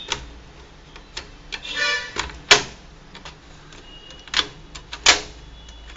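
Plastic snap-in clips of a Dell Inspiron laptop's palmrest clicking and snapping loose as a screwdriver pries it up from the base: several sharp snaps, the loudest about two and a half seconds in, with a brief plastic creak just before it.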